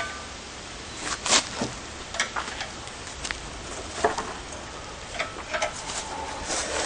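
Scattered light knocks, clicks and scrapes of metal parts shifting and bumping, irregular and without rhythm, over a steady hiss, as the old chassis frame is worked loose from under the car body.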